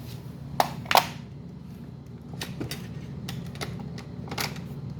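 Clicks and clacks of a derailed O gauge model train car being handled and set back on the track. There are two sharp knocks about a second in, then lighter clicks, over a steady low hum.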